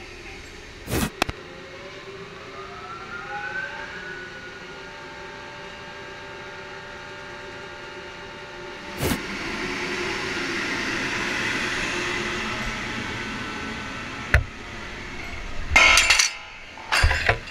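Drilling rig machinery running, with a motor whine that rises in pitch a few seconds in and then holds steady. Sharp metal knocks stand out at intervals, and a cluster of loud clanks of steel on steel comes near the end.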